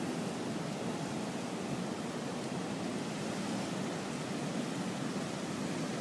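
Ocean surf breaking offshore and washing up the sand, a steady, even rush of noise with no single wave crash standing out.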